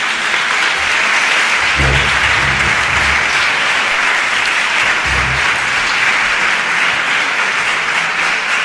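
A large audience applauding steadily, the dense clapping holding an even level throughout.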